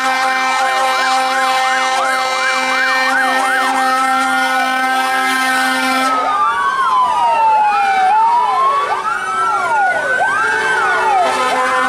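Several fire truck sirens on old Škoda 706 fire trucks sounding at once over steady held tones. A fast up-and-down yelp of about two to three sweeps a second stops about six seconds in, and slower rising and falling wails overlap after it.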